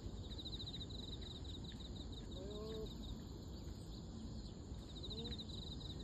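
Steady wind noise across the field, with a bird singing a high, rapid trill that starts fast and slows into separate chirps, twice, with a few faint low rising calls in between.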